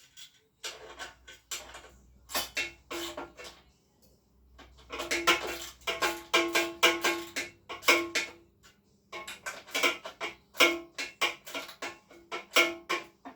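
Metal tools working on motorcycle parts: rapid irregular clicking and clinking with a short metallic ring, in bursts broken by brief pauses.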